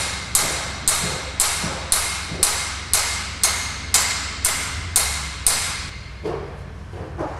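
Steady hammering, about two blows a second, each a sharp strike ringing briefly. The blows stop about five and a half seconds in, followed by a couple of softer knocks.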